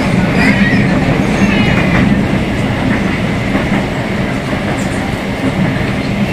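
Rio Metro Line 2 train running between stations, heard from inside the car: steady rumbling running noise with the motor's deep, even hum, the 'roncando' (growling) motor. Faint high wheel squeals come in the first two seconds.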